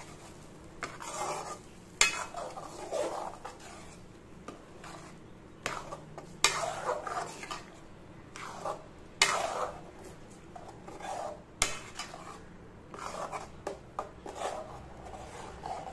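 Metal spatula stirring thick tomato pickle paste in a large metal kadai, scraping the pan in repeated strokes. A few sharp clinks sound where it knocks against the pan's side.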